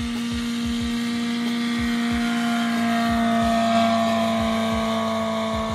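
Ultralight aircraft's small piston engine running at high power as it takes off and passes close by. It grows louder to a peak about four seconds in, then eases off with a slight drop in pitch.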